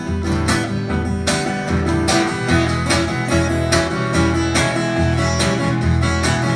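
Solo acoustic guitar played live, a steady strummed rhythm over a bass note on each beat: the instrumental intro before the singing comes in.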